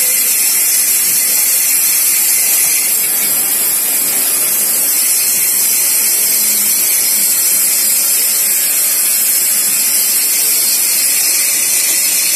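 Automatic lathe with bar feeder running, a steady hiss with no distinct strokes or rhythm.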